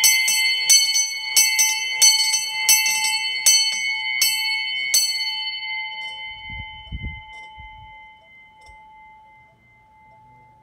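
Small bronze bells of a miniature motorised bell tower, swung on belt-driven wheels, ringing with clapper strikes about three times a second. The strikes stop about five seconds in and the ringing fades away, with a few low mechanical thuds around seven seconds in.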